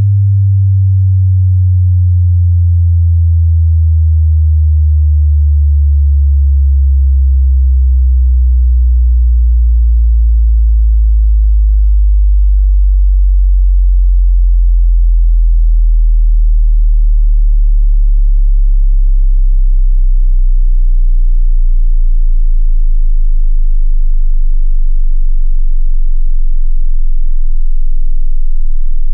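A deep bass test-tone sweep: a single pure sine tone slowly falling in pitch, from low bass down into the deepest sub-bass. It is a test signal for checking how low a subwoofer, speakers or headphones can reproduce.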